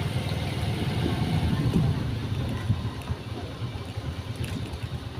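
Small motorcycle engine running steadily at low road speed, a fast low throb that eases slightly in the second half.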